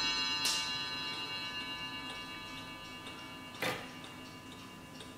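Chime of an 1880s W&H triple-fusee mantel clock dying away, its many ringing tones fading, over faint ticking. Two clicks from the clock sound, one about half a second in and a louder, sharp one about three and a half seconds in as the minute hand is turned by hand.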